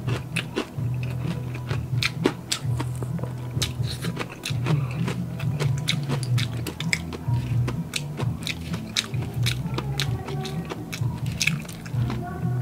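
Close-up chewing and crunching of super crispy deep-fried mussels, many sharp crunches in quick succession, over steady background music.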